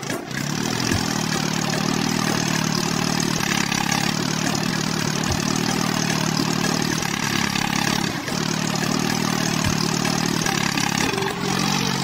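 Tractor engine running steadily at an even pace, with a brief dip about eight seconds in.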